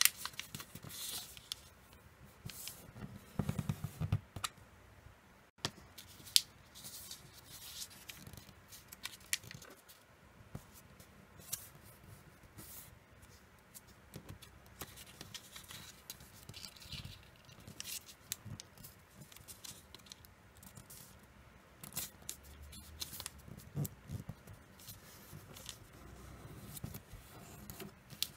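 Origami paper rustling and crackling as it is folded and its creases pressed firmly, in scattered short scrapes and clicks.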